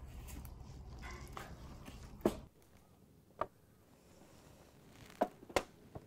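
Wood fire burning in a fire pit, with a low rumble and a few crackles, the last one sharp. A little over two seconds in, the sound drops to quiet, with a handful of short, sharp knocks of things set down on a wooden cooking table and cutting board.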